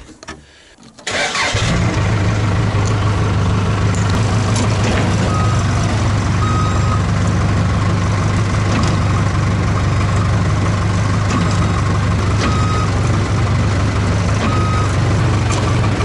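Case backhoe's diesel engine starting about a second in and then running steadily. A few short high beeps sound over it.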